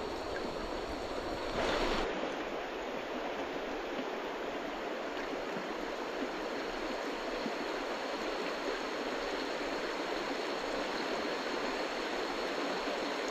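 Creek water running over rocks: a steady rush, with a brief louder swell near the start.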